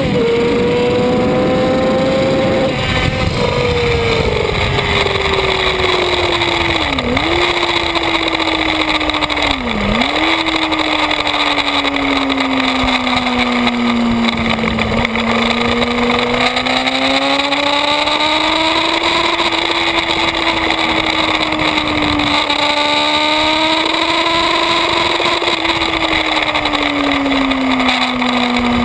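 Yamaha YZF-R6 sport bike's inline-four engine at speed, heard from on the bike, its pitch sliding down and back up as the rider brakes and accelerates, with two sharp brief dips at gear changes. Constant wind rush on the microphone.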